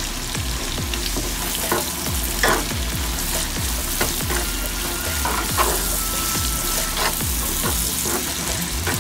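Chopped onions and shallots sautéing in hot coconut oil in a frying pan, sizzling steadily, with a spatula stirring and scraping now and then as they soften with salt.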